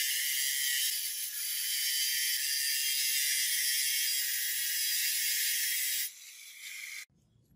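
Grinding wheel against a metal pen body spinning in a lathe: a steady, loud, high hiss of abrasive on metal. It drops about six seconds in and stops abruptly a second later.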